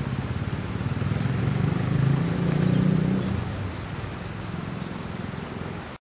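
Low rumble of a passing motor vehicle that swells about two to three seconds in and then fades, with a few brief high chirps from small birds.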